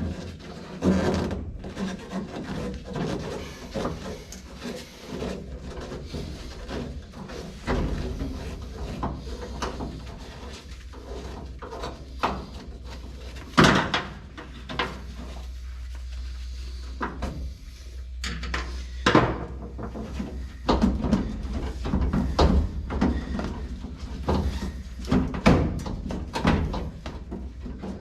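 Irregular metal clunks, scrapes and rattles of a binding window regulator being worked out of a 1955 Chevrolet 210's steel door, with a sharp knock about halfway through.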